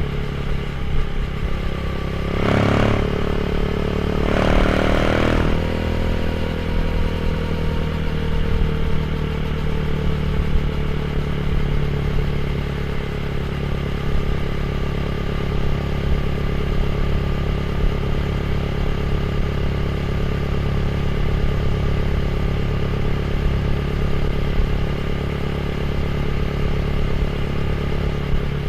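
Motorcycle with a GPR aftermarket exhaust idling steadily, with two short throttle blips a few seconds in before the revs sink back to idle.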